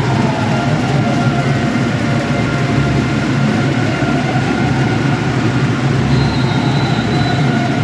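Volleyball arena crowd keeping up a loud, steady din of shouting and noise-making, a sustained 'minute of noise' rather than a minute of silence.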